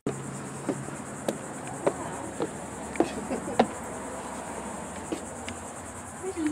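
Footsteps on wooden deck boards, six sharp knocks about half a second apart, over a steady high insect trill. A voice starts briefly at the very end.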